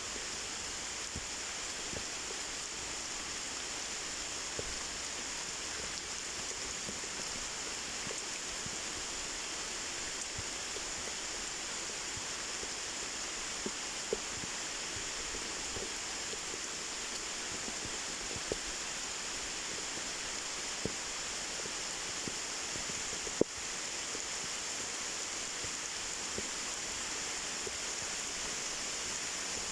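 Waterfall rushing: a steady, even hiss of falling water, with a few scattered sharp clicks.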